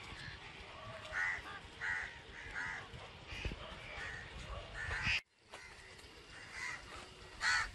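Crows cawing, a string of short harsh caws about a second apart. The sound drops out completely for a moment just past the middle, then the cawing carries on.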